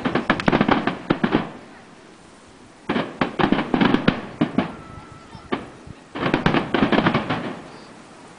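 Fireworks display: aerial shells bursting in three rapid volleys, each a quick run of bangs about a second and a half long, with short lulls between them.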